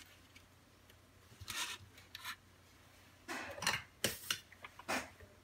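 Hands handling small parts and tools on a workbench cutting mat: a handful of short scrapes and clicks, the loudest bunched near the end.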